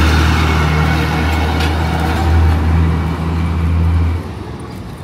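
Engine of a bus running close by: a loud, steady low drone over street traffic noise that drops away about four seconds in as the bus moves off.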